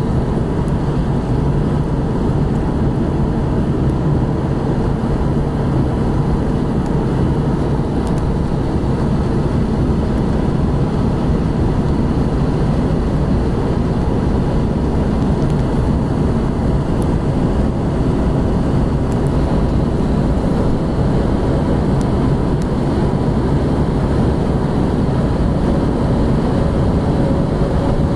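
Cabin noise of a Chrysler 300C SRT8 cruising at high speed: a steady, unchanging blend of Hemi V8 engine, tyre and wind noise, with no revving.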